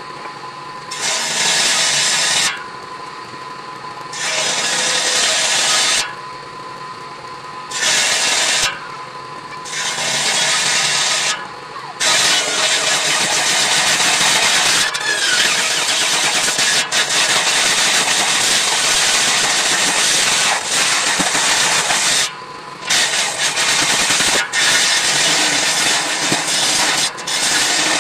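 Table saw with its blade set through a homemade wooden table, ripping wood as pieces are pushed through by hand. For the first dozen seconds it alternates between short loud cuts and the quieter whine of the blade spinning free; after that the cutting runs almost continuously, with two brief pauses.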